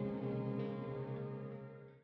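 Background music of sustained, ringing tones, with a new note coming in about half a second in, fading out near the end.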